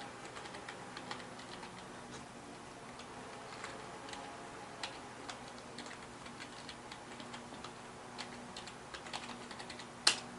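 Light, irregular keystrokes on a computer keyboard as a password is typed, with a sharper key click about ten seconds in, over a faint steady hum.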